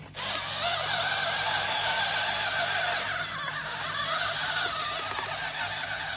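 Vintage Tomy/Taiyo Buggy Monster 6WD RC car's electric motors and gearboxes whining as it drives across grass, the pitch wavering up and down. It cuts in abruptly at the start.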